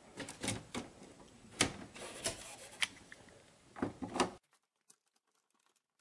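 A hand working a wire into a circuit breaker's terminal in a metal breaker panel: scattered light clicks and scrapes. The sound cuts off to dead silence about four and a half seconds in.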